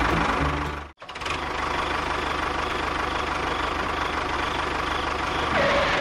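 Tractor engine running steadily with an even, rapid beat; it breaks off abruptly about a second in and resumes at once. Near the end a short rising whine comes in.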